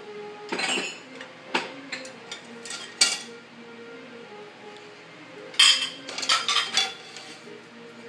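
Dishes in a dishwasher's wire rack clattering and clinking as they are handled and lifted out: a few separate knocks in the first three seconds, then a quick run of clinks about halfway through.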